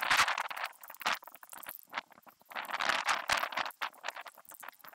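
Aerosol spray-paint can spraying in short hissing bursts, with crackly sputtering between: a burst at the start, a brief one about a second in, and a longer one near three seconds.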